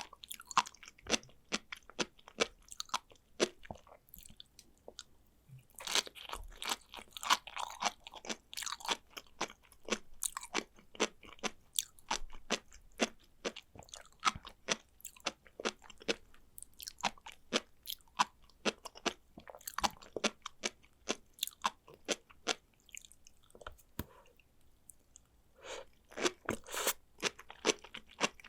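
Close-miked chewing of sea grapes (Caulerpa lentillifera seaweed): a rapid stream of small, crisp pops and crunches as the beads burst between the teeth. The clicks come in thicker clusters about six seconds in and again near the end.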